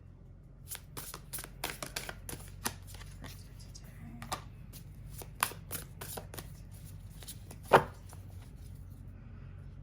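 Tarot cards being shuffled by hand: a run of quick, irregular card snaps and flicks, with one louder slap about three-quarters of the way through.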